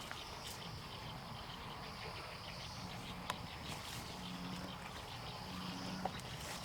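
Outdoor ambience with a steady high insect trill, a few soft clicks, and a low hum coming in during the second half.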